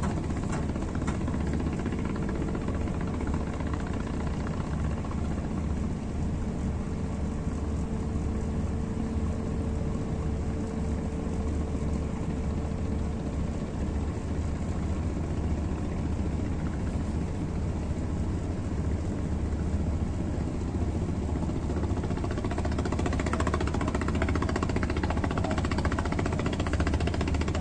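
Ship's diesel engine running with a steady low rumble and a faint steady hum above it; the sound grows a little louder and noisier over the last few seconds.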